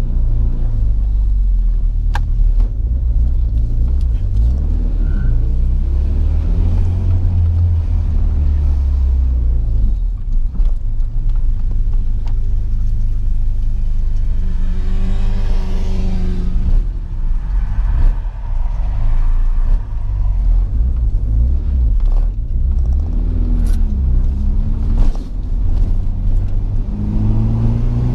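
Turbocharged Nissan Sentra GA16DE 1.6 L four-cylinder engine heard from inside the cabin while driving, over a steady low road and engine rumble. The engine note rises and falls as the car speeds up about halfway through, and it climbs again near the end.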